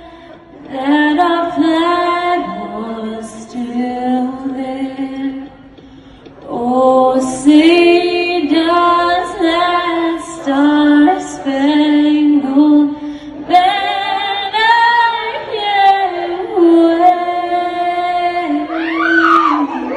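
A woman singing live into a microphone, long held notes with a short break about six seconds in.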